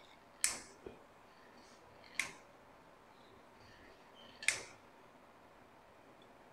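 Three sharp mechanical clicks about two seconds apart from the homemade PCP air gun as it is handled and made ready between shots.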